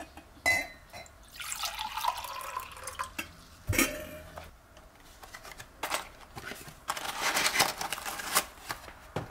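Tea being made in glassware: a glass clink, then water poured into a glass mug, and a thump as something is set down on the table. Later, a long crinkling of the paper wrapper as a tea bag is unwrapped.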